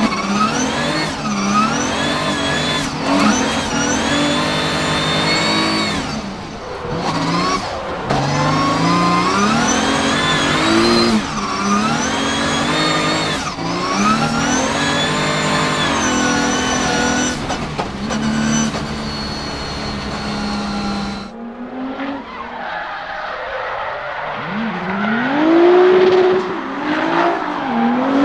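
Nissan VR38DETT twin-turbo 3.8-litre V6 in a Nissan 200SX S13 drift car, heard from inside the cabin, revving up and down again and again as the car is driven through drifts. About three quarters of the way through, the sound cuts to a thinner, more distant recording of the car drifting, its engine pitch rising and falling.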